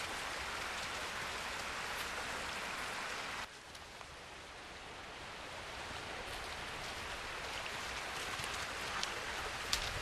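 Forest stream rushing steadily as an even hiss. It drops abruptly about three and a half seconds in, then slowly swells back up.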